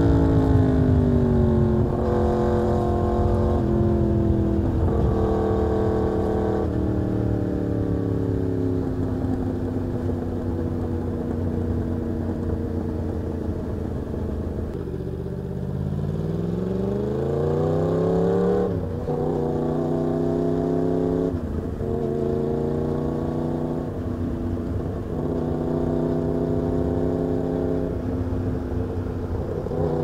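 Yamaha MT-10's crossplane inline-four engine heard from the rider's seat. It slows with a falling pitch and a few gear changes, runs steadily, then accelerates hard with a rising pitch until a gear change about 18 seconds in, and settles into a steady cruise.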